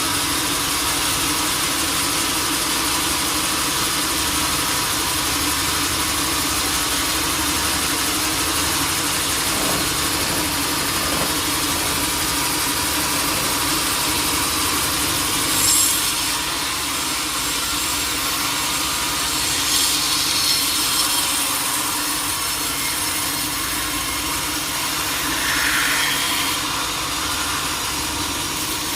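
Sawmill machinery running steadily, a saw cutting wood over a running engine, with a few brief louder moments about halfway through, around two-thirds in and near the end.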